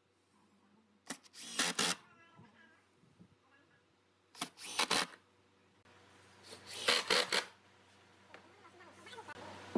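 Cordless impact driver driving screws into pine framing, in three short bursts about a second, four and a half seconds and seven seconds in.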